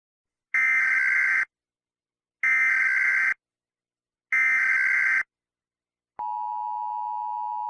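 Emergency Alert System opening: three digital header data bursts of warbling tones, each just under a second long and a second apart, then about six seconds in the steady two-tone EAS attention signal begins.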